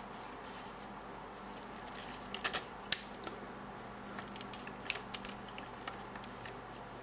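Faint, scattered clicks of a transforming toy car's plastic parts and joints being handled as its arms are folded down, in two small clusters about two to three seconds in and again around four to five seconds in.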